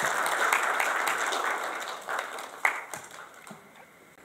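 Audience applauding, dense clapping that thins out and dies away about halfway through, ending in a few scattered last claps.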